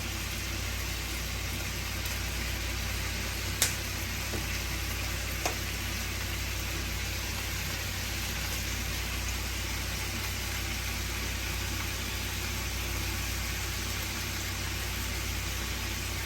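Food frying in a pan, a steady sizzle over a low steady hum, with two light clicks a few seconds in.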